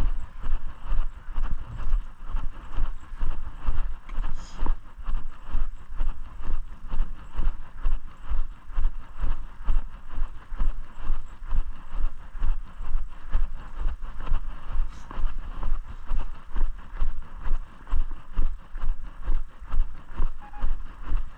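Footsteps at a steady walking pace, about two a second, each with a low thump.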